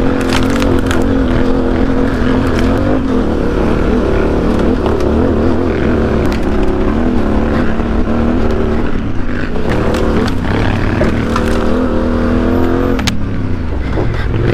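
Yamaha Ténéré 700's parallel-twin engine with a Mivv Dakar exhaust, ridden hard off-road, its pitch rising and falling with the throttle and gear changes. A few sharp knocks are heard, and the engine note drops near the end.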